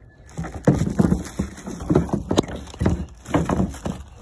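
Irregular hollow knocks and clunks, several a second, as a plastic headlight assembly is pushed and worked into its mount on a car's front end.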